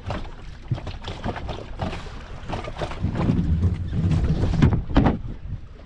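Water slapping the hull of a small open fishing boat, with wind on the microphone and scattered knocks. A louder low rumble runs from about three to five seconds in.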